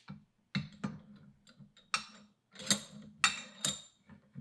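Light metal taps and clinks, about seven at irregular spacing, a few ringing briefly: steel tools and parts knocking together while kingpin bushings are worked in and out of an early Ford spindle.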